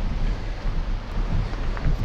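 Mountain bike rolling over a gravel track, with heavy wind rumble on the microphone and a few sharp crunches of stones under the tyres.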